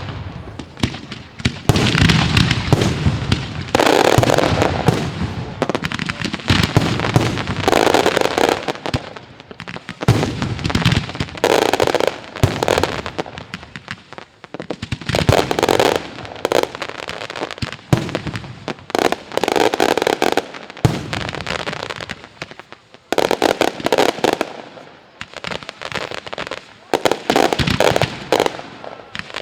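Daylight fireworks display: salvos of rapid shell bursts and crackling bangs, coming in loud waves every few seconds with short lulls between.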